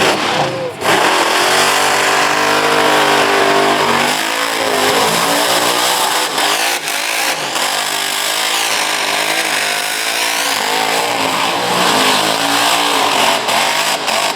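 Car engine revving hard during a burnout, its pitch rising and falling again and again, with a dense hiss of spinning tyres beneath it.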